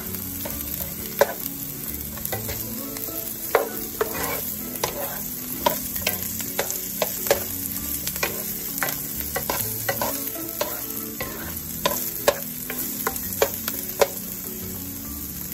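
Diced onion frying in oil in a nonstick pan: a steady sizzle, with a wooden spoon stirring it and knocking against the pan in irregular clicks about once or twice a second.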